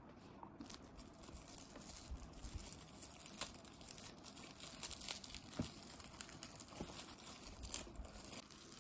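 Thin plastic wrapper crinkling as it is picked at and peeled off a piece of Indian sweet by hand: a dense run of small crackles.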